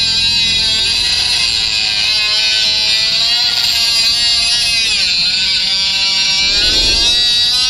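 Cordless mini angle grinder cutting a thick steel gate bar: a loud, high motor whine with the disc grinding on the metal. The pitch sags as the disc bogs under load, most clearly about five seconds in, then picks back up.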